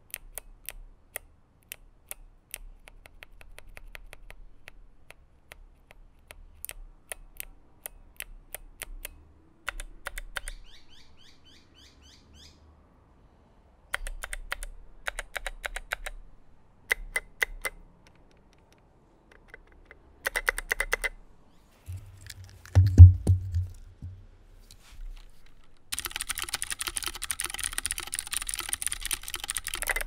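Clicky Kailh Box Jade switches with tall SA keycaps on a KBD661 aluminium mechanical keyboard, typed in short bursts of crisp clicks with pauses between. A little past the middle comes one loud low thump, and over the last few seconds the typing turns fast and continuous.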